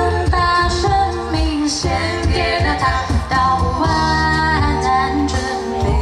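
A cappella vocal group singing a military-song medley in close harmony: several voices holding chords, a female voice on top and a steady low bass line underneath.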